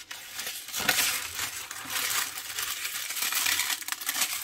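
A strip of small plastic bags of resin diamond-painting drills being handled: the thin plastic crinkles and the tiny drills rattle and clink inside, with many small ticks.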